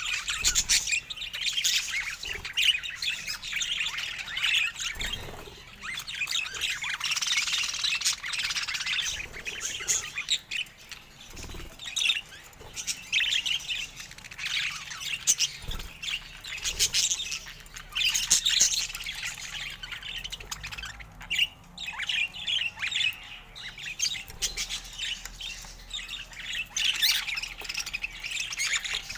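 Budgerigar chatter: a continuous run of chirps and squawks.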